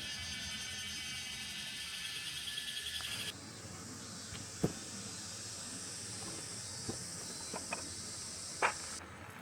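Insects chirping in a dense, pulsing chorus. About three seconds in it cuts off abruptly to a quieter, steady hiss with a few sharp clicks.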